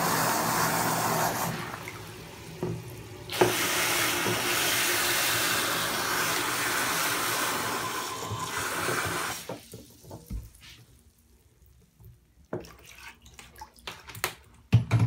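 Water running into a bathtub, a steady rush that drops away briefly about two seconds in, comes back, and stops about nine and a half seconds in. After that, a scattering of small splashes and clicks.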